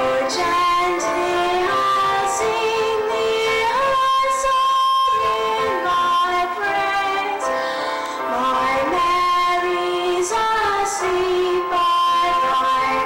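A girl singing a slow song solo over instrumental accompaniment, with long held notes.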